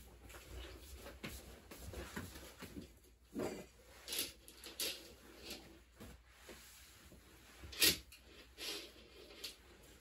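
Bedding rustling and swishing as a duvet is pulled and smoothed over a bed, in a series of irregular swishes, the sharpest about eight seconds in.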